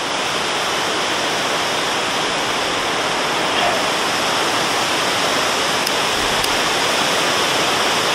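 Strong wind rushing through woodland trees and buffeting the tarp and microphone. It is a steady rushing noise that builds in the first second, then holds.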